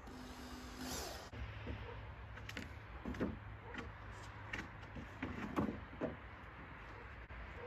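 A cordless drill runs for under a second, driving a screw into the wooden corner of a raised bed. Then come knocks and scrapes of the wooden boards being pushed into line by hand, with two louder knocks at about three seconds and five and a half seconds.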